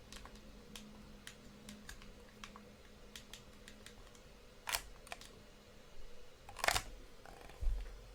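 Scattered light clicks of small buttons being pressed, a few to the second, with two louder sharp clicks about five and seven seconds in and a dull thump near the end, over a faint steady electrical hum.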